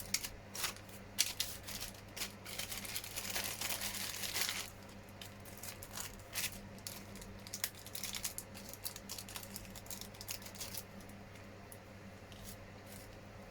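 Small hard-plastic model parts being handled at close range: rustling with scattered light clicks, busiest in the first few seconds and lighter afterwards.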